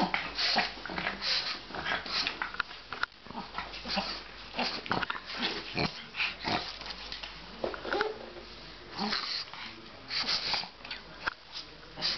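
Pug breathing noisily in short, irregular puffs and snuffles, with scattered sharp clicks as it moves about on the wooden floor.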